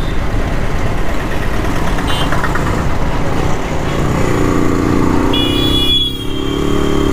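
Rajdoot 175's single-cylinder two-stroke engine running on the move, mixed with wind and road noise. A little past halfway, a vehicle horn sounds steadily for about two seconds.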